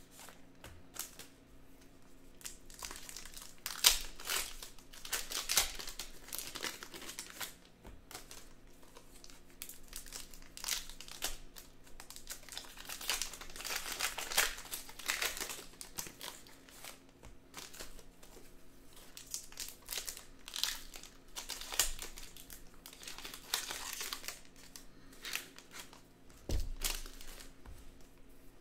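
Trading-card pack wrappers crinkling and tearing in irregular bursts as sports card packs are opened and handled, with a dull low thump near the end.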